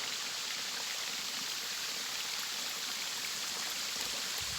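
Steady rush of flowing water from a stream and waterfall, an even hiss with no break. A faint low rumble comes in near the end.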